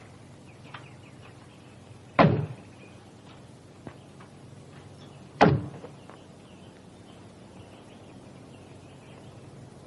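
A car door slamming shut twice, two heavy thuds about three seconds apart, over a faint steady background hiss.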